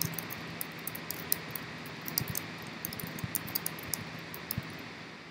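Typing on a computer keyboard: quick, irregular key clicks over a steady background hiss.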